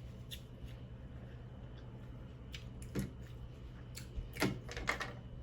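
Eating at close range: a few scattered soft clicks and snaps of seafood shell being picked apart and chewed, with a small cluster near the end, over a low steady hum.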